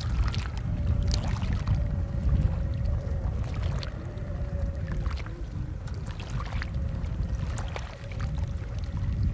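Water splashing and short knocks at irregular moments as a fishing net is hauled by hand into a wooden dugout canoe, over a steady low rumble and a faint continuous hum.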